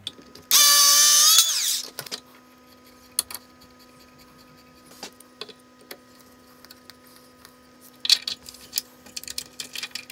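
A power drill runs for about a second, its pitch rising slightly before it winds down. Scattered small clicks follow, with a quick flurry of clicking and rattling near the end as small metal hardware is handled.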